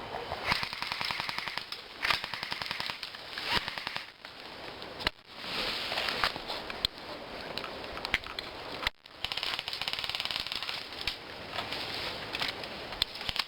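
Airsoft guns firing: sharp pops and clicks, some coming in quick runs of shots.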